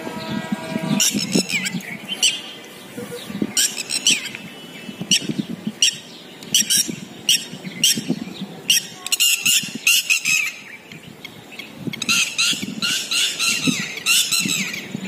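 Birds calling repeatedly with short, harsh squawks and chirps in clusters, busiest near the end.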